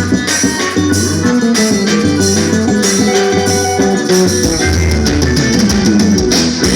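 Forró band playing an instrumental passage between verses: an accordion melody over bass, drum kit and percussion, keeping a steady dance beat.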